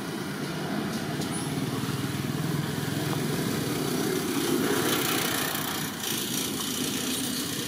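A motor engine running steadily, with a low rumble that grows louder for about five seconds and then eases off a little.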